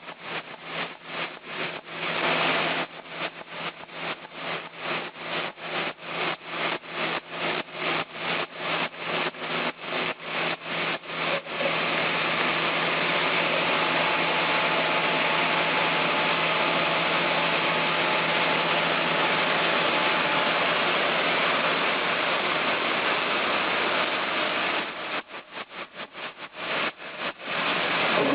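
A machine running with a low steady hum and a rapid rhythmic clicking, about three clicks a second. Some eleven seconds in, the clicking gives way to a continuous even whir. The clicking returns briefly near the end.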